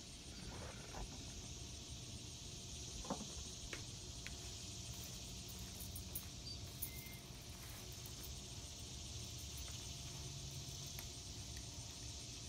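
Outdoor field ambience: a steady high insect drone, like crickets, over a low rumble, with a few faint clicks about three to four seconds in.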